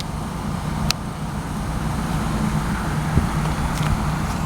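An 18-wheeler semi truck approaching on the road, its engine and tyre noise growing louder over the first couple of seconds and then holding steady.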